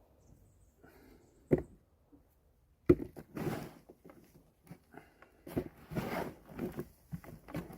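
Hands digging and sifting through loose compost and potatoes in a grow container: two sharp knocks, about a second and a half and three seconds in, then a run of rustling and scraping.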